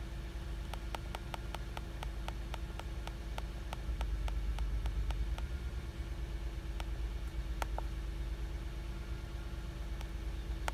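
Rapid key clicks on a handheld OBD scan tool, about four a second for several seconds as a menu list is scrolled, then a few single presses, over a steady low hum in the car cabin.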